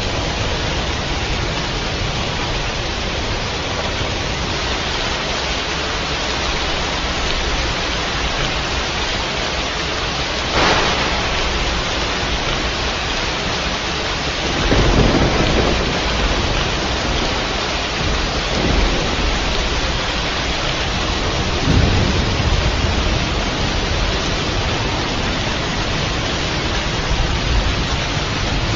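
Steady rain with thunder: a sharp crack about ten seconds in, a louder low rumble a few seconds later, and several smaller rolls after it.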